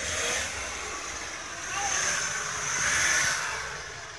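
BMW X5 E70 pulling through deep snow with all-wheel drive: engine running under load while the tyres churn through the snow, the noise swelling twice, about two and three seconds in.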